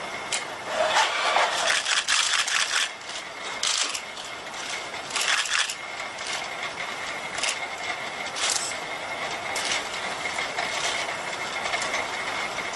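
HRP-4 humanoid robot's joint motors and gears whirring and clicking in short bursts as it raises its arms into a load-carrying pose, over a steady high whine.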